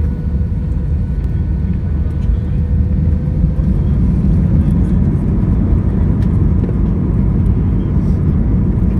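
Airbus A320 cabin over the wing during the takeoff roll: a loud, steady low rumble of the engines and runway that grows slowly louder as the jet accelerates, with a faint whine that rises slightly in pitch in the first few seconds.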